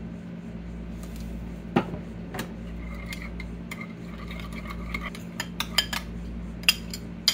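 A metal spoon stirring a thick mayonnaise sauce in a ceramic bowl and clinking against its sides: a couple of knocks about two seconds in, then a quick run of clinks in the last two seconds. A low steady hum sits underneath.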